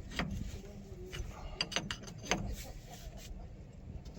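Irregular metal clicks and clinks of a wrench working on a hydraulic hose fitting being reinstalled and tightened, about half a dozen sharp knocks spread across a few seconds.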